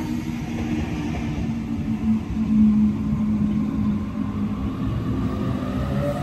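Sydney Trains double-deck electric train moving along the platform: a low rumble of wheels on rail with a steady motor hum. Near the end the electric motors rise into a climbing whine as the train gathers speed.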